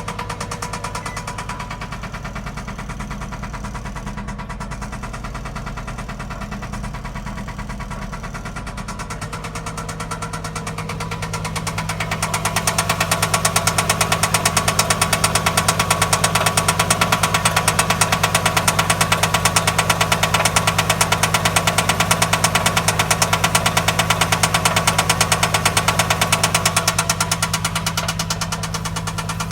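2003 Infiniti I35's 3.5-litre V6 running with a rapid, steady knocking/tapping. The owner takes it for an engine knock that a new timing chain tensioner has not cured, and suspects the pre-catalytic converters. It grows louder about a third of the way in and eases near the end.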